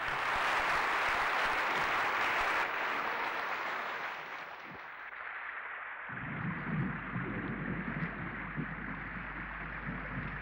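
Audience applauding, a dense even clatter that fades away over the first five seconds or so. Then a low, irregular rushing sound with a steady low hum underneath.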